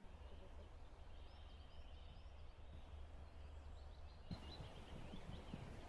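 Faint outdoor ambience: a steady low rumble of wind on the microphone with faint, scattered bird chirps. About four seconds in, the sound turns fuller with a soft knock.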